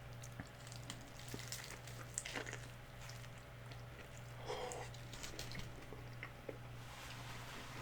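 A person chewing chicken flautas: scattered small crunches and mouth clicks, over a steady low hum.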